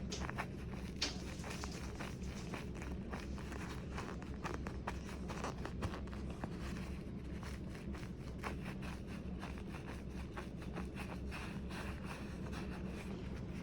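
Handling noise: many light irregular clicks and rustles over a steady low hum.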